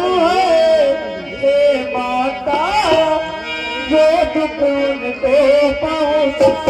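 Singing, a drawn-out wavering melody, over sustained harmonium notes.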